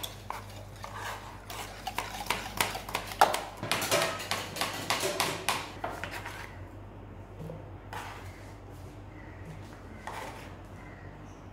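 Kitchen knife dicing apple and banana on a plastic cutting board: quick, sharp taps of the blade against the board, thinning out to a few taps after about six seconds.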